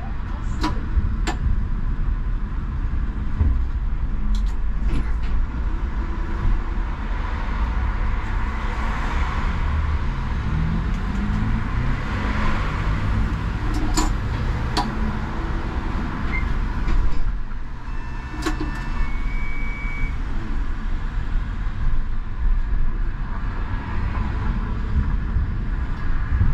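Škoda 39T low-floor tram running, heard from on board: a steady low rumble of the running gear on the rails, with a whine that rises in pitch from about a third of the way in as it gathers speed. A few sharp clicks, and two short high tones about two-thirds of the way through.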